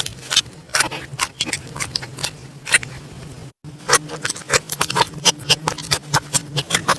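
Slime being squeezed and poked by hand: a dense, irregular run of small crackling pops and clicks, broken by a brief dropout about halfway through.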